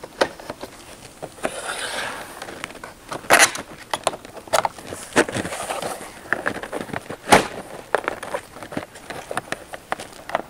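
Vinyl siding outside corner trim being pressed into place by hand, its back lip hooking onto the siding with a series of sharp plastic clicks and snaps. The two loudest snaps come about three and a half and seven seconds in.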